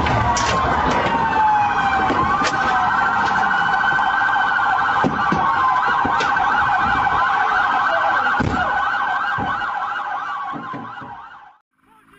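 Police car siren sounding loud and close, slow rising and falling wails that change to a fast yelp in the second half, with a few dull knocks underneath; it fades out near the end.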